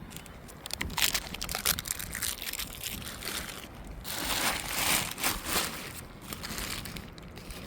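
Plastic snack wrapper crinkling in irregular bursts, as a granola bar wrapper is handled.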